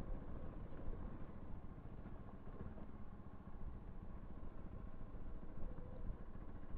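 Bajaj Pulsar NS 200's single-cylinder engine running steadily and fairly quietly as the motorcycle rides along a dirt road, heard from the rider's seat.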